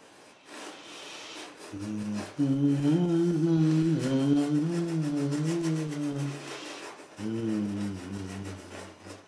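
A man humming a slow tune in long, wavering held notes, with a brief pause near two-thirds of the way through. Underneath, a paintbrush rubs across the canvas.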